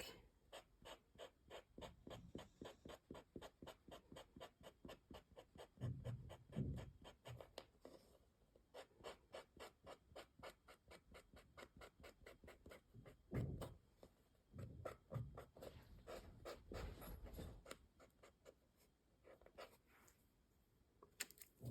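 Faint quick dabs and strokes of an acrylic paint marker's tip on laser-cut wood, about three a second, with a few dull low bumps as the piece is handled.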